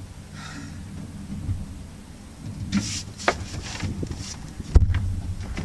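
A few short knocks and one sharp thump over a steady low rumble.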